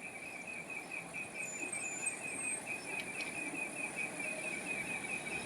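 Insect chirping steadily in a rapid even pulse, about five chirps a second, over a faint outdoor background hiss.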